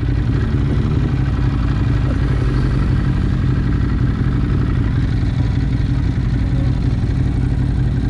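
Vehicle travelling at a steady speed: a continuous low engine drone mixed with road noise.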